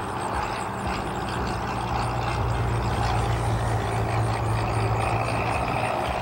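Cessna 172 Skyhawk's four-cylinder piston engine and propeller droning steadily as the plane flies low past, growing a little louder a couple of seconds in as it comes closest.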